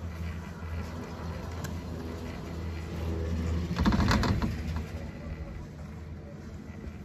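Chair of a Poma Challenger high-speed quad chairlift running along the line with a steady low rumble. About four seconds in, a rising rumble builds into a brief rattling clatter as the chair's grip rolls over a tower's sheave train.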